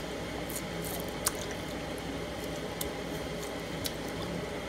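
Wet squelching and light splashing as blanched pork intestines are scraped with a knife and rubbed by hand in a plastic bowl of water to strip off the slime, with a few sharp clicks.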